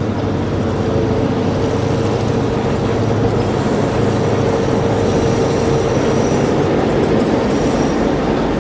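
Train running: a steady rumble of rolling rail cars, with a steady droning tone over it.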